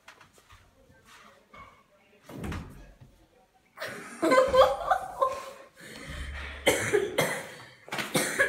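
Several loud bursts of a person's voice, coughing and other non-word vocal sounds, starting about four seconds in; before that only a few faint knocks and rustles.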